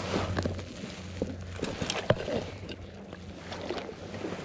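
Small splashes and drips of lake water around a landing net dipped in the water beside a float tube, scattered light ticks over a low steady rumble.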